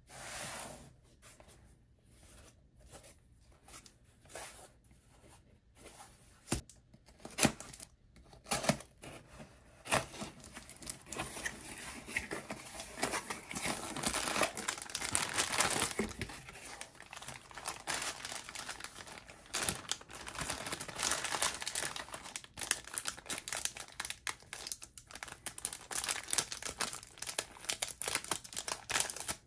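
Packaging being handled: scattered rustles and clicks at first, then dense crinkling of a plastic bag as hands pull it from a cardboard box, and near the end a foil wrapper being torn open and crinkled.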